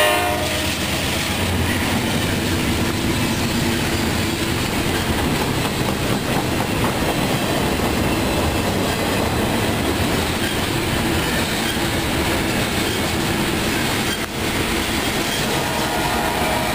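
A CSX freight train passing close by: the locomotives go past at the start as their horn cuts off, then double-stack container cars roll by with steady wheel and rail noise and clickety-clack.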